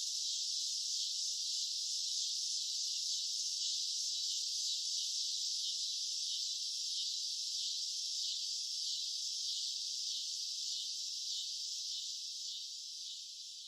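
Cicadas buzzing in a steady, dense, high-pitched drone that fades out near the end.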